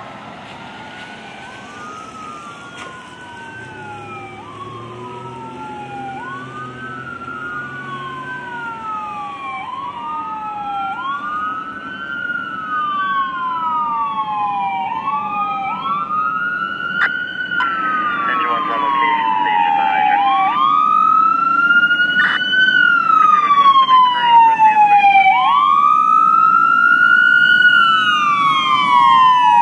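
Fire engine's electronic siren on a wail, each tone rising quickly then falling over two to three seconds, growing steadily louder as the engine approaches.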